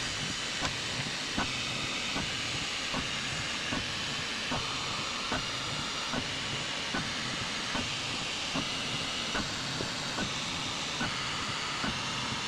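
Flashforge Adventurer 5M Pro 3D printer's calibration run, fast-forwarded: a steady hiss with a light click repeating about every 0.8 s.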